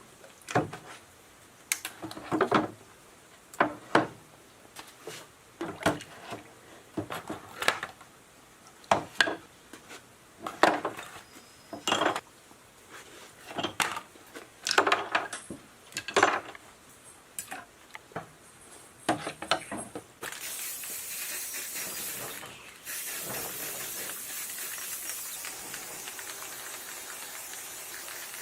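Metal parts being handled, knocking and clinking together with short ringing strikes, roughly one a second. From about two-thirds of the way in, a steady hiss takes over, breaks off for a moment, then carries on.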